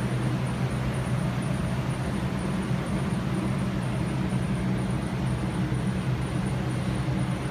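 A steady low mechanical hum at an even level, with a faint high-pitched whine above it.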